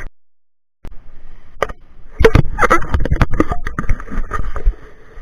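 Handling noise from a small camera being picked up and carried: irregular knocks, clicks and rubbing of hands against its body and microphone. These follow a brief silent gap at the start.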